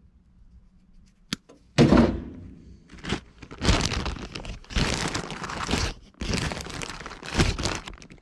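Clear plastic zip-top bag of crimp connectors crinkling and rustling as it is handled and rummaged through, in several loud stretches from about two seconds in. A single sharp click comes just over a second in.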